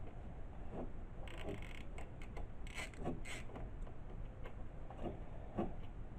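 Hand tools working on the bolts of a GY6 scooter engine's rocker cover: scattered light clicks and taps, a few at a time, over a faint steady hum.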